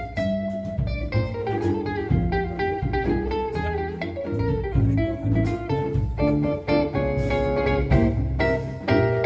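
Modern jazz quartet playing live, with a guitar line standing out over walking double bass and drums, and cymbal hits throughout.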